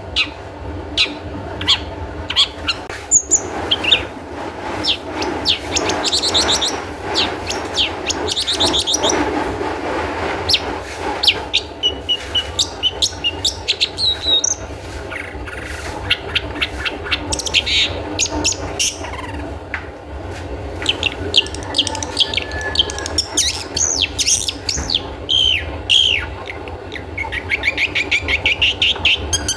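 Long-tailed shrike (cendet) singing: a busy run of short sharp notes, chatters and fast trills, with some rising sweeps near the end. A steady low hum runs underneath.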